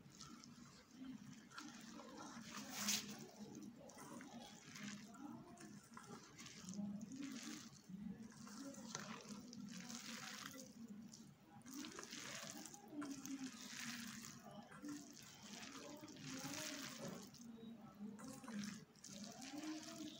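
A bare hand kneading a wet mixture of boiled noodles, gram flour, beaten egg and chopped onion in a steel bowl, with a soft wet squishing stroke every second or so.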